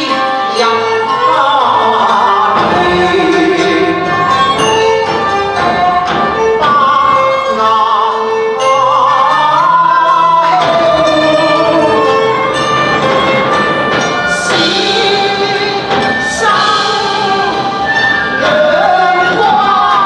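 Cantonese opera song (yuequ) sung by a woman with long, sliding sustained notes, over a Chinese instrumental ensemble accompaniment.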